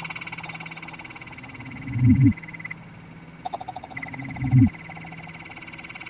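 Frog croaks: deep, short calls that fall in pitch, twice, over a steady high pulsing trill that breaks off in the middle and starts again.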